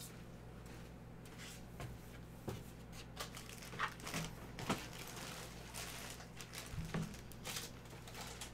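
Clear plastic bag around a football jersey crinkling and rustling as it is handled and flipped over: a string of short rustles and a few sharper clicks, mostly after the first two seconds, over a low steady hum.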